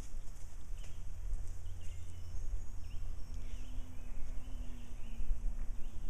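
Wind rumbling on the microphone, with songbirds chirping now and then. A faint steady hum comes in about three seconds in and lasts a few seconds.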